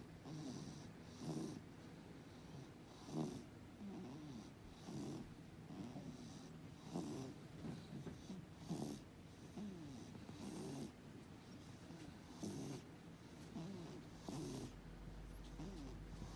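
A cat with feline asthma breathing with a rattly wheeze, one breath swelling about every two seconds.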